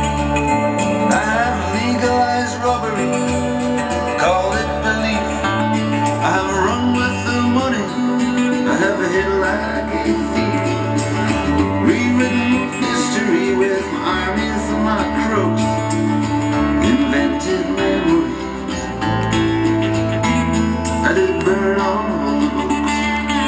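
A song playing from a vinyl record on a turntable through a hi-fi system. This stretch is instrumental, with plucked strings over a bass line that changes note every second or two.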